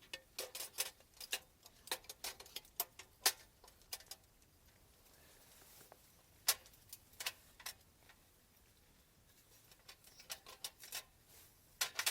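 Irregular sharp clicks and light taps, singly and in small clusters, with a few quieter gaps between them.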